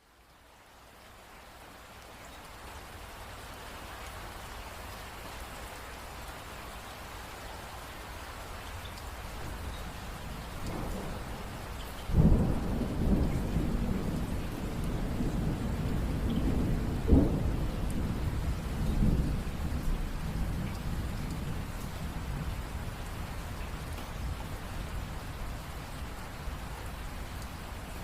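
Steady rain that fades in over the first few seconds. Near the middle a sudden thunderclap breaks out and rumbles on for several seconds, with a second sharp crack a few seconds later, and then the rain carries on alone.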